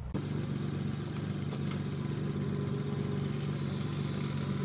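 Car engine idling steadily; it comes in abruptly just after the start and holds an even pitch with no revving. The car is a home-built Bugatti La Voiture Noire replica.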